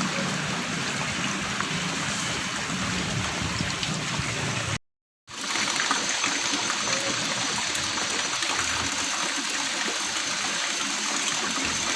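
Small stream flowing and gurgling as a steady rush of water. It cuts out completely for about half a second some five seconds in, then carries on as before.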